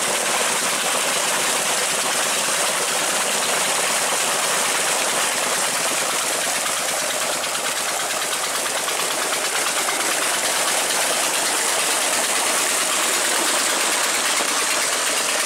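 Steady rush of a high-pressure jet of water pouring from a tube well pipe into a tank, over the even running of a single-cylinder Petter diesel engine driving the pump.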